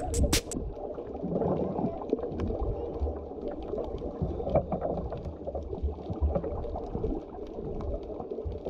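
Water sloshing and bubbling heard through an action camera's waterproof housing, partly underwater: a muffled low rumble with scattered small clicks and crackles.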